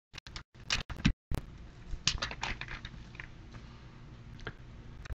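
Foil football-card pack wrapper crinkling as the cards are pulled out and handled, a run of short crackly clicks in the first half, quieter after.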